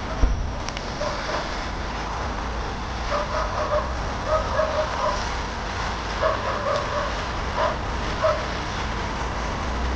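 A dog barking, a run of short barks starting about three seconds in and carrying on until near the end, over a steady background rumble.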